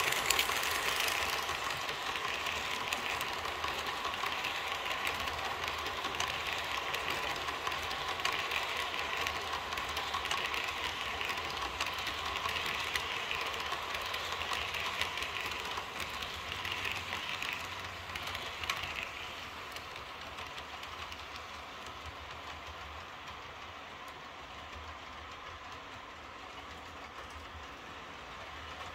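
Model electric train, a Piko BR 110 locomotive pulling a rake of passenger coaches, running past on layout track: a steady running hum with fine clicking of wheels over the rails. It is loudest during about the first 19 seconds, then fades as the train moves away.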